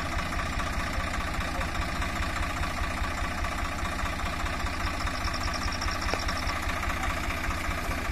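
Swaraj 744 FE tractor's three-cylinder diesel engine idling steadily with an even low beat, the tractor stuck in mud. A short, high, rapid chirping comes in about five seconds in.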